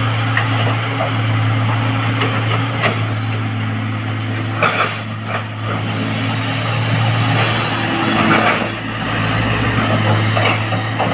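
Heavy diesel engine of earthmoving equipment running steadily, with a few short knocks over it.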